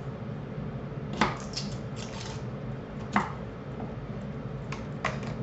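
Kitchen knife knocking and scraping on a wooden cutting board while garlic cloves are peeled, with rustling of the papery skins. Two sharper knocks, about a second in and about three seconds in, stand out over a faint steady hum.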